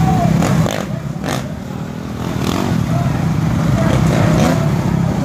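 Dirt bike engine running and revving, with a distant voice over it.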